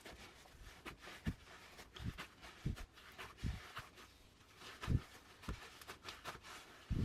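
Glitter-filled clear PVA slime being squished and poked by hand: irregular soft thuds with small clicks and pops.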